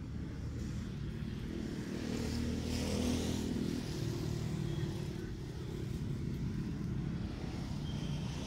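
Motorbikes running past on a road, a steady engine rumble that swells to its loudest about three seconds in and then eases.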